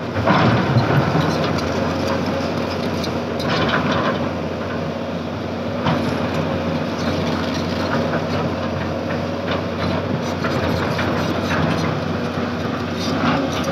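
SANY SY210C-9 crawler excavator running: a steady diesel engine hum with clanking and clatter from the machine as it moves, and a few louder surges of noise.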